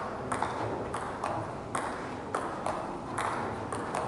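Table tennis rally: a celluloid ball clicking off bats and bouncing on the table, about two sharp clicks a second.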